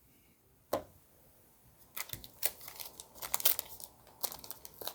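A trading-card pack wrapper being crinkled and torn open: one sharp tap just under a second in, then irregular crackling from about two seconds on.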